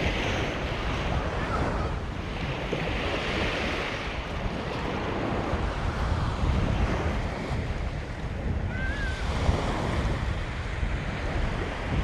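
Ocean surf washing onto a beach, swelling and fading every few seconds, with wind buffeting the microphone.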